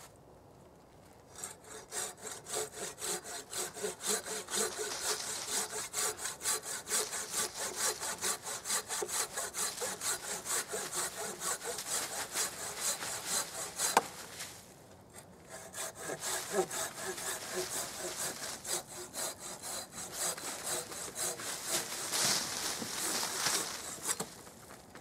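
Folding hand saw cutting through a log with quick back-and-forth rasping strokes. There is a sharp click and a short pause about halfway through, then a second run of strokes.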